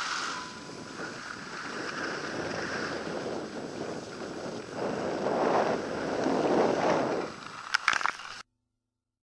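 Wind rushing over the microphone of a camera carried by a skier moving over snow, with skis sliding and hissing on the snow. The noise swells louder twice, about five and six and a half seconds in, a few sharp knocks follow near the end, and then the sound cuts off abruptly.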